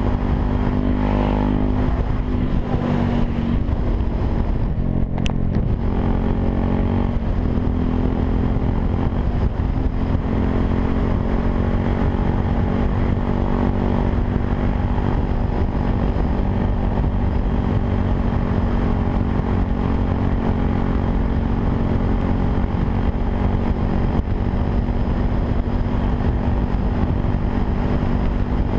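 Yamaha WR 125 R's single-cylinder four-stroke engine running through a Takkoni aftermarket exhaust, its pitch rising and falling a few times in the first ten seconds or so, then holding steady. Wind rumbles on the microphone underneath.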